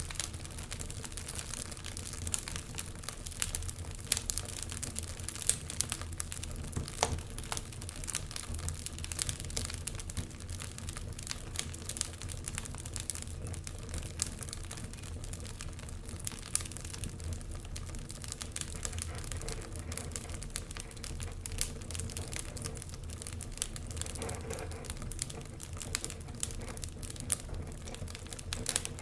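Wood fire burning in a fireplace, crackling with many small irregular pops over a low steady rumble.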